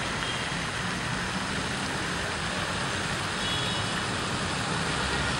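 Steady street traffic noise: an even rush with a low rumble underneath.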